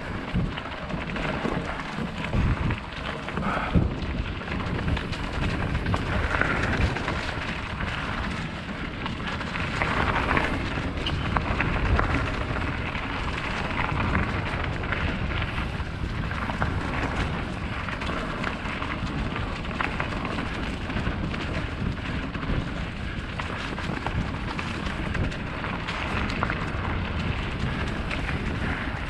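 Mountain bike ridden along a dirt trail: a steady rushing, rumbling noise of the tyres over dirt and rocks, with scattered knocks and rattles.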